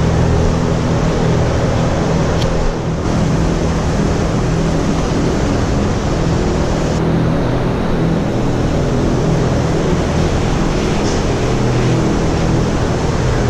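Large ventilation fans in a dairy barn running steadily: a constant low hum with a rush of moving air.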